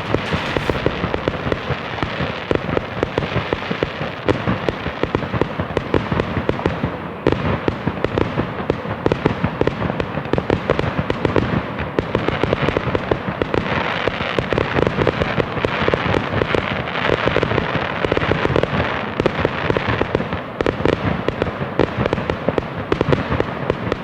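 Fireworks going off without a break: rapid, overlapping bangs and crackling.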